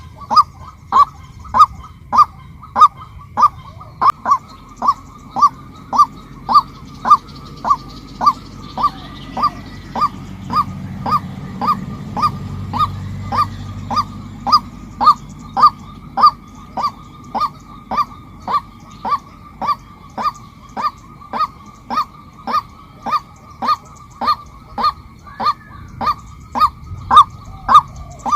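Female white-breasted waterhen calling: a single honking note repeated monotonously and evenly, about twice a second.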